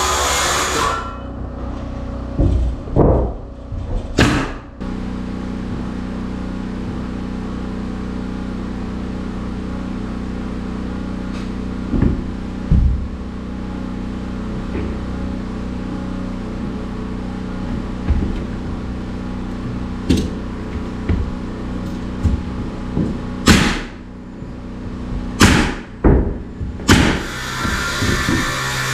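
Steady low machine hum with scattered knocks and bangs of carpentry work on a wooden cabin. A cluster of louder bangs comes near the end.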